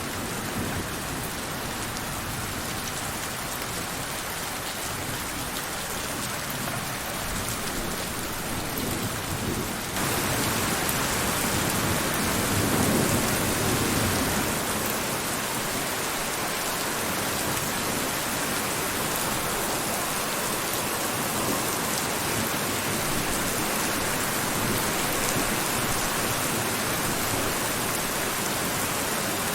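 Steady rain falling hard and evenly. About ten seconds in it abruptly becomes louder and brighter, and soon after a low rumble of thunder swells and fades.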